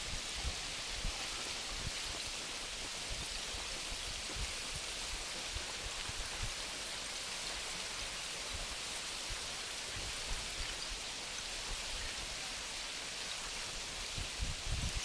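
Steady, even hiss of river ice floes and slush drifting and rubbing together on the current, with occasional low thumps that come more often near the end.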